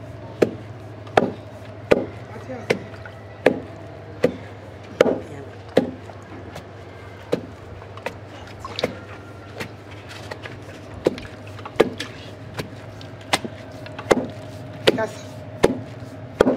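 Wooden pestle pounding fufu of boiled cassava and plantain in a mortar: a steady rhythm of thuds, about one stroke every three-quarters of a second.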